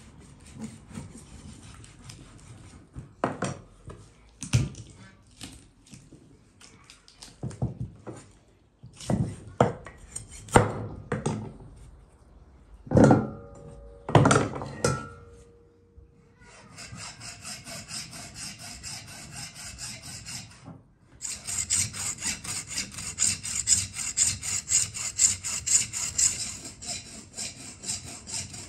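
Scattered knocks and scrapes of a knife and a beef hoof on a wooden chopping block, one briefly ringing. About halfway through a hand hacksaw starts sawing through the hoof in quick, even strokes, breaks off briefly, then goes on louder.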